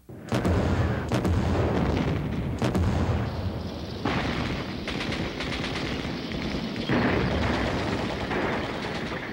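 Battle sounds: rapid gunfire and machine-gun fire over a heavy low rumble, starting suddenly just after the start and shifting abruptly about four and seven seconds in.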